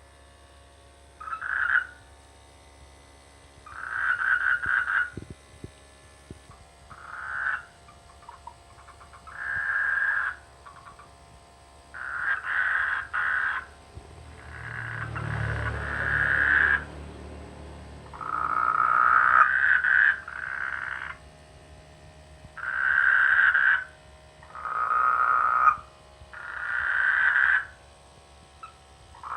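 A chorus of frogs croaking their mating calls, in bouts of rapid, pulsed croaks every couple of seconds with short quiet gaps between. A low rumble sits under the calls about halfway through.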